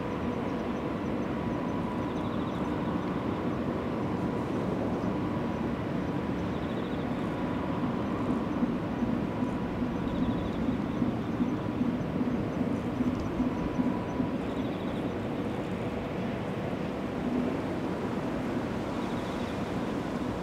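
Steady rumble of distant vehicles or machinery with a faint hum, and an uneven low pulsing in the middle.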